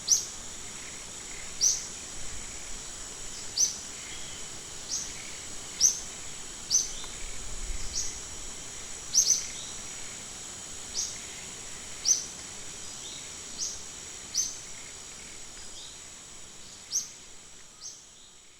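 Wild ambience of short, sharp, downward-sliding bird chirps repeating about once a second over a steady high-pitched insect drone, fading out near the end.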